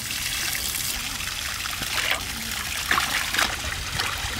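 Water trickling and splashing as a whole duck is rinsed clean, with a few sharper splashes in the second half.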